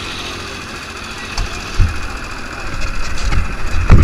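Rental kart engine chugging at low revs, with a few low thumps, getting louder toward the end. It starts after a steady hiss.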